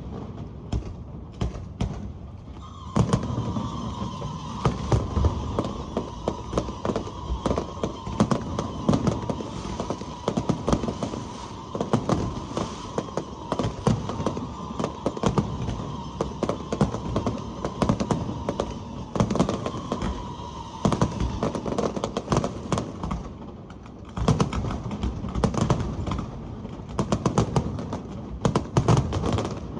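Aerial fireworks exploding in a dense, irregular run of bangs and crackles. A steady high tone sounds behind them for most of the first two-thirds.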